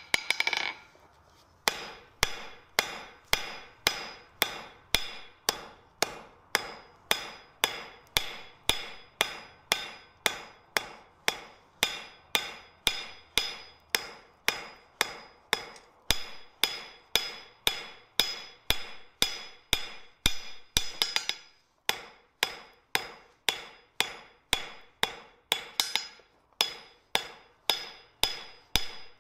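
Blacksmith's hand hammer striking a red-hot bar held in tongs on an anvil, after a brief clatter: steady blows about two a second, each with a ringing note from the anvil. The hammering pauses briefly about three-quarters of the way through, then carries on.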